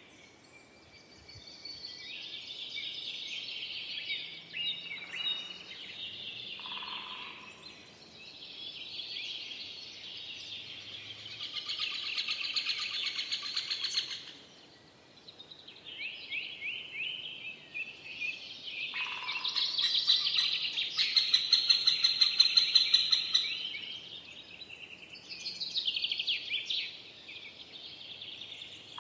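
Several forest songbirds singing over one another in a continuous chorus of chirps, whistles and trills. The song swells and fades in phrases and is loudest about two-thirds of the way through, where a rapid trill stands out.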